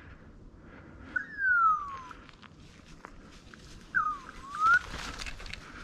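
Two loud whistles: first a long one falling steadily in pitch, then a shorter one that dips and rises again. Light rustling and footfalls in the undergrowth come between them.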